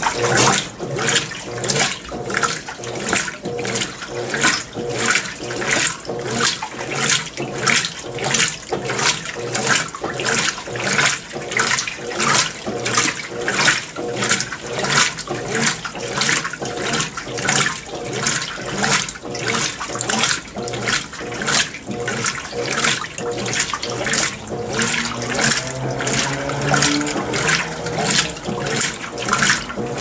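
Consul 16 kg top-load washing machine agitating its load in rinse water: water sloshing and churning in even surges, about three every two seconds.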